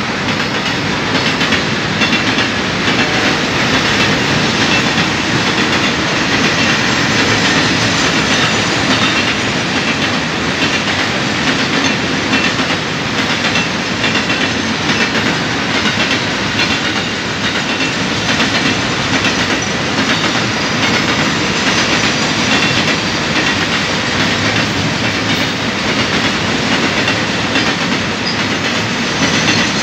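Freight train of container flatcars rolling past close by at speed: a loud, steady rumble of steel wheels on the rails with repeated clicks of wheels passing over rail joints.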